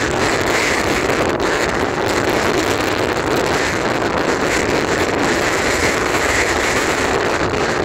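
Storm wind blowing hard across the microphone, mixed with heavy surf breaking against a rock breakwater, a steady unbroken rush.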